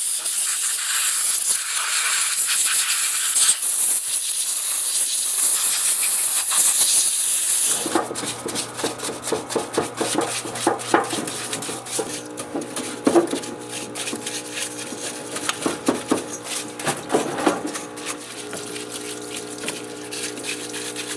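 Compressed air from a blow gun hissing steadily as it blows dirt off a chainsaw's body, for about eight seconds. Then a parts washer runs with a steady hum while a hose-fed brush scrubs the saw, with irregular scrubbing strokes and light knocks.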